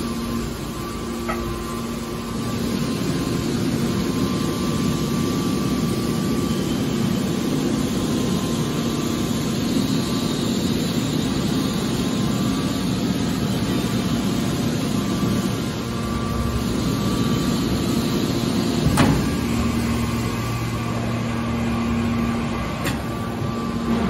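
Hydraulic scrap-metal baler running: a steady machine hum from its hydraulic power unit, with a single sharp knock late on.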